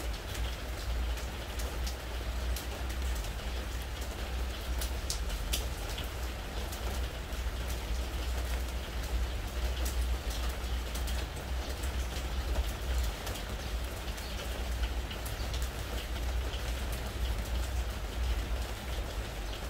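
Spring rain falling on a pressure-treated wooden deck: a steady patter full of sharp individual drop ticks, over a constant low rumble.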